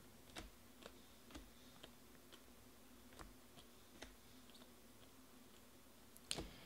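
Faint clicks of glossy Panini Prizm baseball cards being slid off a stack one at a time, about one every half second with a louder click near the end.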